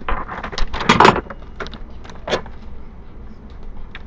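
Clattering and knocking of kitchen containers and utensils being handled. The sounds are busiest in the first second, with a few scattered knocks after.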